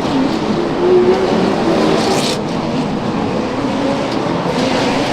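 Race car engines running at speed, a steady loud drone with wavering pitch.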